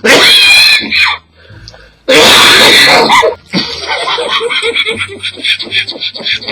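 Man coughing hard: two long, harsh coughs loud enough to overload the microphone, then a fast run of short vocal bursts, about five a second.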